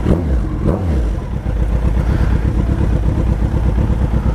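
Suzuki Hayabusa's inline-four engine running loud through straight-through exhaust pipes with no mufflers, blipped twice in the first second and then running steady.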